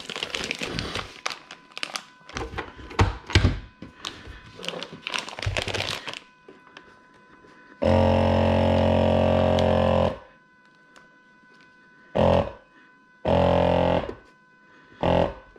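A plastic vacuum-seal bag crinkles and rustles as it is handled. Then a countertop vacuum sealer's pump runs steadily for about two seconds, followed by a few shorter bursts near the end as the bag is drawn tight and sealed.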